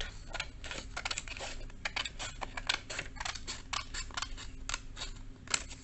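Scissors snipping through a sheet of coloured craft paper, a quick irregular run of crisp snips, several a second.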